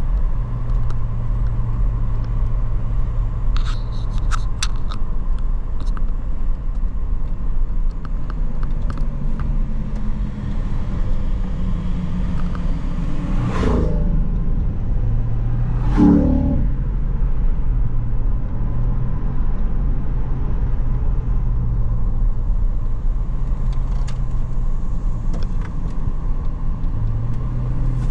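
Steady engine hum and road noise of a vehicle being driven, the engine note shifting a little. About halfway through, two oncoming vehicles rush past a couple of seconds apart, each with a quick fall in pitch.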